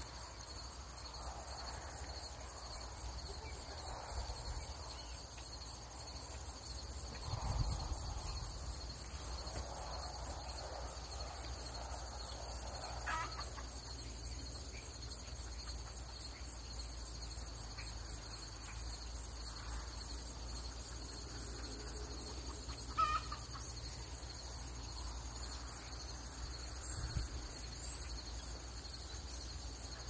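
Backyard chickens clucking over a steady chorus of crickets, with a few soft knocks from picking close by. A short sharp call about three quarters of the way through is the loudest moment.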